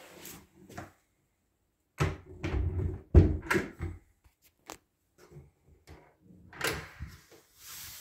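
An interior door being handled: a loud cluster of knocks and clicks from its lever handle and latch about two to four seconds in, then a few lighter clicks and a short rushing sound near the end.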